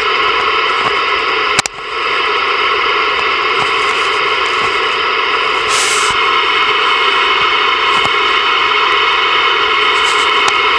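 Ranger VR-9000 11-meter multimode radio receiving steady static hiss through its speaker, with no clear station heard. About a second and a half in there is a sharp click with a brief dropout, and a short flare of higher hiss comes near the middle.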